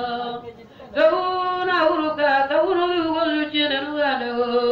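A single voice singing a prayer unaccompanied in long, held notes that glide between pitches. The voice breaks off just before a second in and starts a new phrase at about one second.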